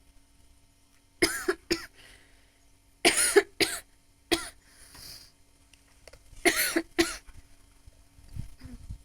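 A woman coughing from smoking, in three short fits of two or three coughs each, with a breathy exhale between the second and third.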